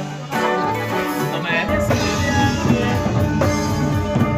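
Corrido music: plucked-string notes at first, then the full band with heavy bass comes in about a second and a half in.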